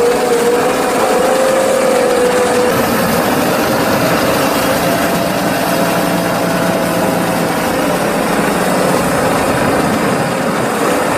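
Heavy tractor engines running steadily under load, the nearest a Claas Axion 830 pushing chopped maize silage with a front-mounted leveller. A whine wavers around one pitch for the first two or three seconds, then fades to a fainter steady tone.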